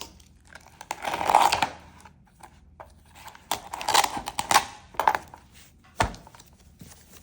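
Paper crinkling and rustling as the freshly glued signatures of a Qur'an are pressed down by hand, in several rubbing strokes, the longest about a second in. A sharp knock sounds about six seconds in.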